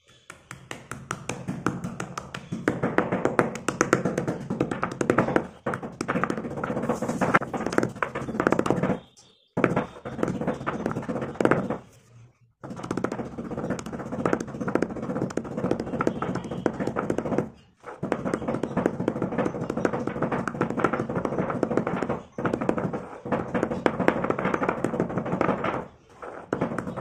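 Slate pencils and shale pieces being crushed in a stone mortar: rapid knocks of the pestle and the crunch and scrape of the chips breaking down into powder. It comes in runs of a few seconds, broken by short breaks.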